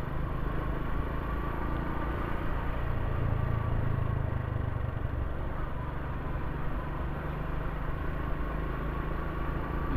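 Motorcycle engine running steadily while riding at an even speed.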